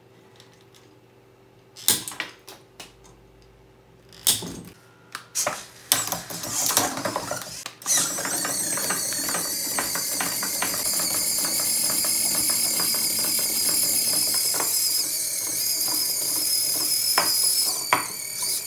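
Hobby servos of a 3D-printed quadruped robot dog: a few seconds of separate clicks and knocks as the legs move, then from about eight seconds in a steady high buzzing whine from the servos straining under the robot's weight. These servos were not powerful enough to hold the robot up.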